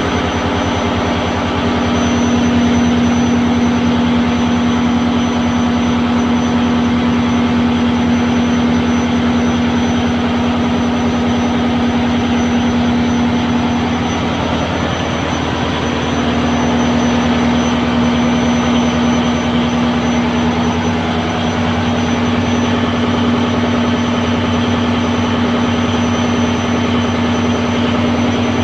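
Fishing boat's inboard diesel engine running steadily, heard from inside the engine room: a loud, even drone with a strong steady hum and a fast regular beat underneath.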